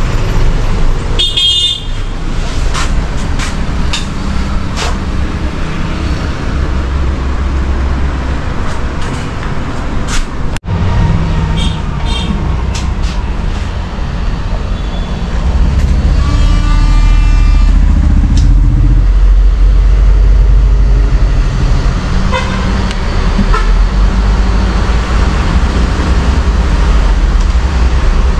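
Steady rumble of road traffic with vehicle horns honking: a short honk about a second and a half in and a longer one of about three seconds a little past the middle, with scattered clicks.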